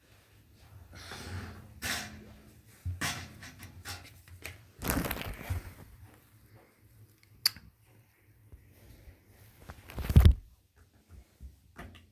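Hands working the parts of a wet and dry vacuum cleaner: irregular rustling and scraping with a sharp click a little past halfway and a heavy knock near the end.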